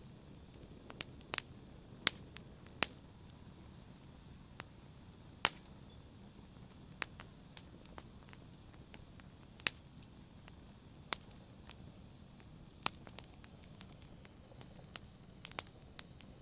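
Wood logs burning in a fireplace, crackling: irregular sharp pops and snaps, some loud and many small, over a soft steady hiss of the fire.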